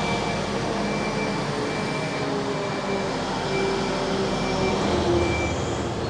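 Manitou telehandler's diesel engine running steadily as the machine works and backs away from a grain heap, with a faint high reversing beep repeating about once a second.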